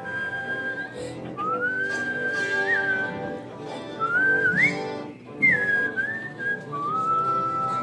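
A whistled melody of long held notes, sliding up into each new pitch, over a sustained instrumental accompaniment.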